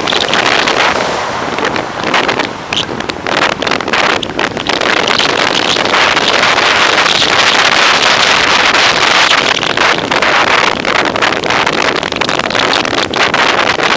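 Wind rushing over the microphone of a handlebar-mounted camera on a moving bicycle, mixed with road noise. The rush grows steadier and denser for several seconds in the middle while the bike passes through a road tunnel.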